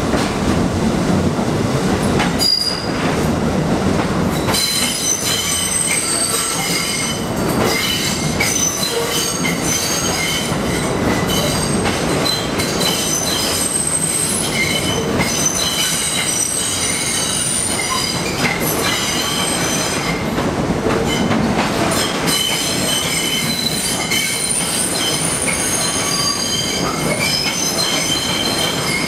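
New York City Subway train rounding a curve in the tunnel, its steel wheels squealing on the rails over a low rumble. The high, several-toned squeal sets in about four seconds in and keeps wavering on and off.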